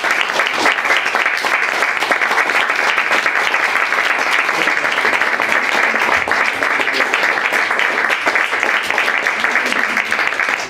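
Audience applauding: a small crowd clapping steadily after a poetry reading.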